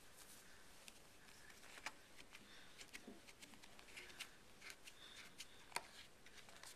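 Faint scraping and small irregular ticks of a credit card wrapped in a microfiber cleaning cloth being pushed across a tablet screen protector, squeegeeing out stubborn air bubbles; the sharpest tick comes a little before the end.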